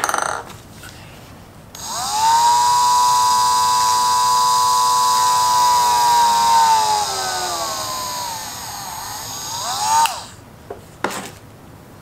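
Handheld rotary tool working a small wooden disc: the motor spins up about two seconds in to a steady high whine, its pitch sags and recovers, and it stops sharply about ten seconds in. A short knock at the start and a couple of light clicks after it stops.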